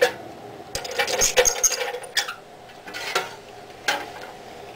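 Metal clanks and clinks as a steel steering gear shaft is set into a chop saw's metal vise and the vise is adjusted: a sharp knock at the start, a quick cluster of clinks about a second in, then a few single knocks.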